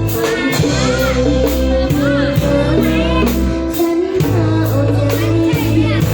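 Live band playing a song with a singer over drums and bass, with a steady beat.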